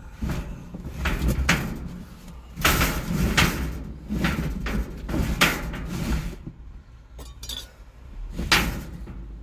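A series of irregular knocks and clatters, about one a second, over a steady low hum.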